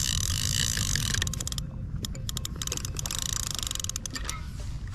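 Fishing reel ratcheting in rapid clicks in two spells, the first stopping about a second in and the second near three seconds, with scattered clicks between, over a steady low rumble.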